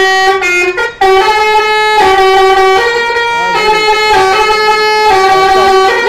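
Bus telolet basuri horn playing a loud tune of held notes, stepping from pitch to pitch every half second to a second, with a brief break about a second in.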